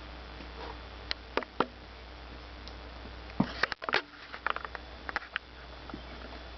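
Four-week-old puppies scuffling as they play-fight: scattered light clicks and scrapes of paws and claws, coming thickest in a busy cluster around the middle.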